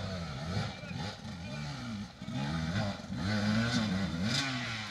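Dirt bike engine revving up and down over and over as the rider works the throttle through rough, muddy ground, growing louder as the bike comes closer.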